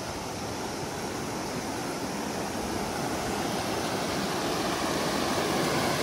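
A river rushing: a steady wash of water noise, growing slowly louder.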